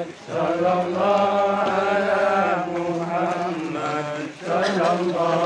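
Voices chanting in long, held, sung phrases, with a brief break just after the start and another about four seconds in.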